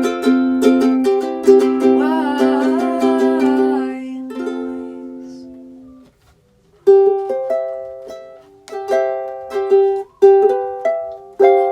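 Ukulele strummed with ringing chords and a long sung note wavering above them; the chords die away about six seconds in. After a short silence the ukulele picks single notes in a repeating pattern.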